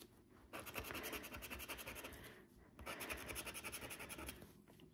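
A plastic scratcher tool rubbed rapidly back and forth over the scratch-off panel of a paper lottery scratch card, scraping away the coating. It is faint and comes in two spells of quick, even strokes with a short pause between.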